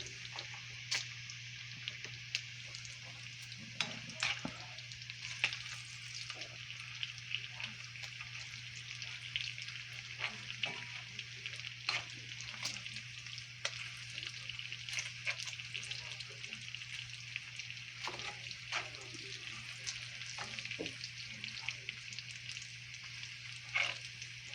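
Food frying in a pan: a steady sizzle with frequent small crackles and pops, over a steady low hum.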